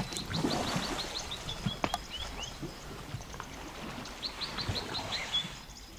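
African savanna elephants sloshing and splashing as they bathe in a muddy river, with a sharp click at the start and another about two seconds in. A bird calls over it in two quick runs of high, evenly spaced chirps, one near the start and one about four seconds in.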